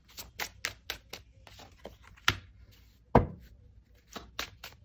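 Tarot deck being shuffled by hand: a run of quick card snaps and clicks, with a louder thump about three seconds in as a card is put down on the spread.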